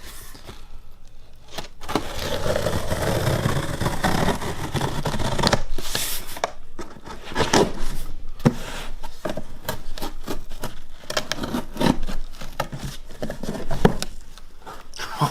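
Cardboard shipping box being cut open with a knife and unpacked: a long scraping, rubbing stretch as the blade runs through the tape and cardboard, then a string of knocks and taps with more cardboard scraping as the box is opened and its contents handled.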